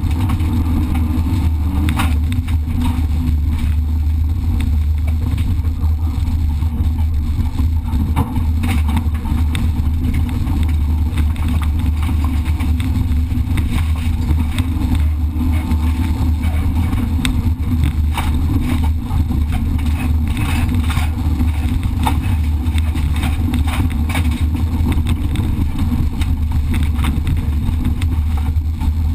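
Competition car driven hard over a rough dirt track, heard from inside the cabin: a steady loud engine drone under load with road noise, and frequent sharp knocks and rattles from the bumpy surface.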